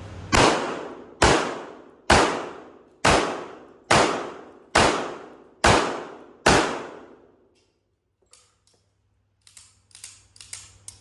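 Eight shots from a Sig Sauer 1911 Spartan .45 ACP pistol, fired at a steady pace of a little under one a second, each ringing off before the next. A few light clicks follow near the end.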